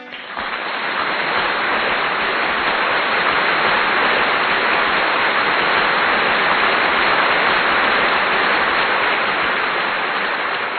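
A steady, even rushing noise, like rain, that comes in quickly as the guitar music stops and holds level throughout.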